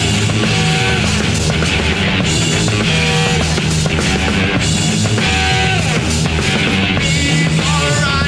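Loud rock music with electric guitar, bass and drums, playing steadily throughout.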